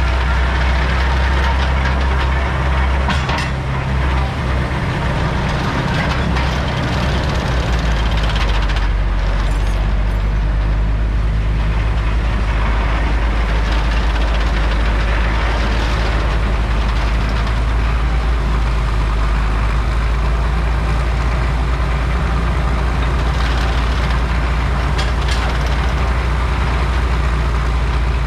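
Heavy engines of a vintage Lorain cable shovel and a Euclid rock truck running steadily as the shovel digs and swings a load over to the truck, with a few short clanks.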